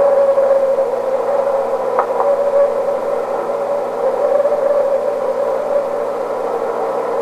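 Recording of a purported sasquatch call: one long, drawn-out call held at a fairly steady pitch and wavering slightly, over a steady hiss, with a faint click about two seconds in.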